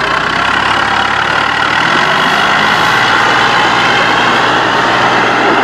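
Small farm tractor's diesel engine running steadily under load as it pulls a heavily loaded trailer across soft ground.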